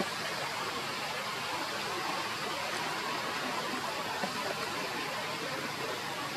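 Steady rushing background noise, even and unbroken, with no monkey calls.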